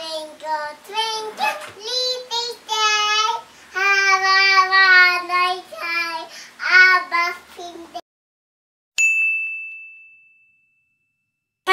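A woman and a small child calling out in drawn-out, sing-song voices, with long held notes. After a second of silence, a single bright chime sound effect dings once and rings away over about two seconds.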